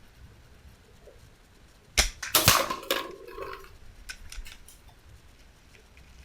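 A shot from an SMK Syntarg .22 air rifle about two seconds in: a sharp crack. Under half a second later comes a louder metallic clang that rings for about a second, the pellet striking a steel plinking target downrange. A few faint clicks follow.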